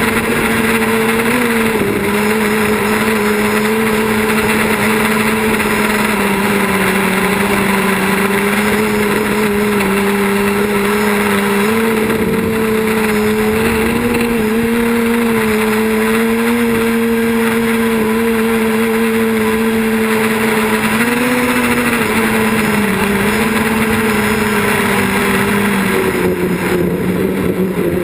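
Quadcopter's electric motors and propellers buzzing steadily in flight, the pitch wavering slightly up and down as the throttle changes.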